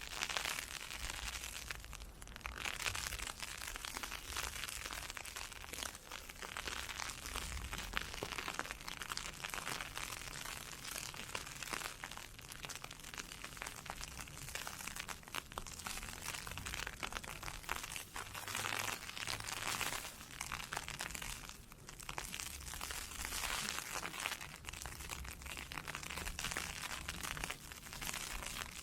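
Ice pellets hitting an umbrella: a dense, steady crackle that eases briefly now and then.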